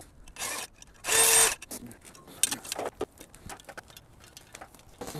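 Handling noise from a plastic service cover and an electrical whip's flexible conduit being moved about: two short louder rustles near the start, then a scatter of light clicks and taps.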